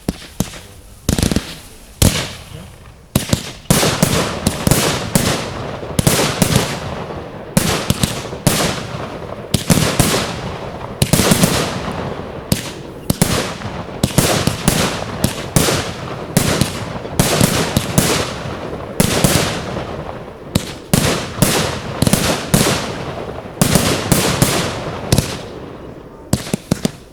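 Fireworks display: a dense barrage of shells bursting one after another, sometimes several bangs a second, each trailing off in crackle, with hardly a pause.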